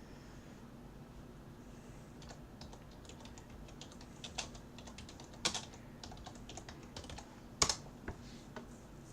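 Typing on a computer keyboard: irregular key clicks, with two much louder keystrokes in the second half, over a faint steady hum.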